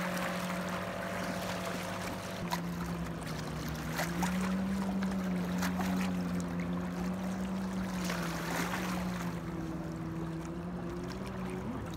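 Distant motorboat engine droning, its pitch drifting and rising for a while about four seconds in, over waves lapping against shoreline rocks.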